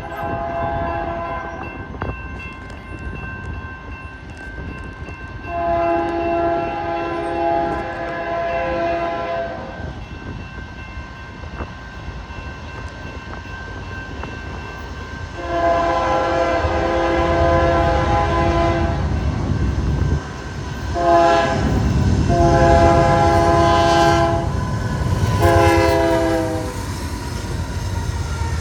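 Union Pacific GE AC4400CW diesel locomotive's multi-chime air horn sounding a chord in a series of blasts. A note tails off just at the start, then a long blast comes about six seconds in. Some ten seconds later there is another long blast, followed by a short toot and two more blasts. A low rumble joins about halfway through and stays under the later blasts.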